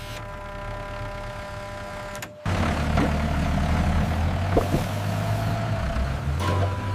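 A steady humming tone for about two and a half seconds, then a sudden switch to a louder, deep rumble of a tractor engine idling.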